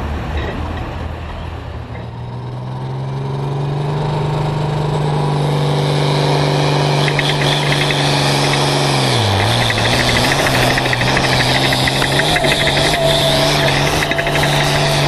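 Hot farm class pulling tractor's diesel engine, heard from on board, running hard under load as it pulls down the track. The revs climb over the first few seconds and then hold high, dip briefly a little past halfway, and recover, with a higher whine joining near the end.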